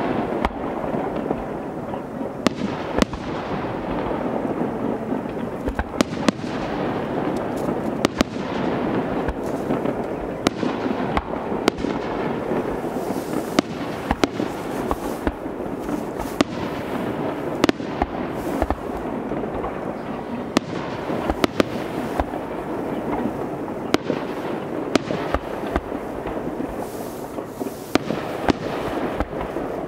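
Fireworks display: aerial shells bursting one after another at an irregular pace, many sharp bangs over a steady background of noise.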